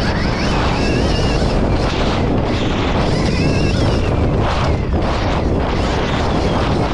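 Wind buffeting the microphone of a camera mounted on a Stark Varg electric dirt bike as it is ridden at speed over a dirt motocross track, a steady loud rush. A faint high whine rises and falls twice.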